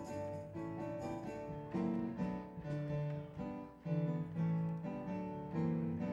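Instrumental music with no singing: a melody of held notes changing every fraction of a second over lower accompanying notes.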